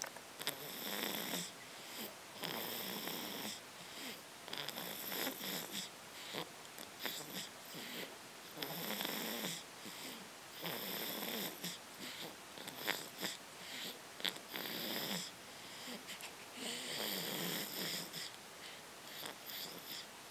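Snoring, a breath about every two seconds, with high whistling and wheezing tones between and on top of the snores.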